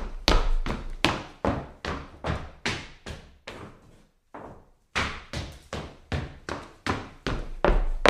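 Hard-soled shoes walking on a wooden floor: steady footsteps at about two and a half a second, each a sharp knock. The steps pause briefly about four seconds in, then carry on.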